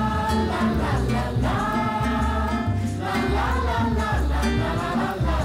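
Music: choir-like voices singing held notes over a steady bass line.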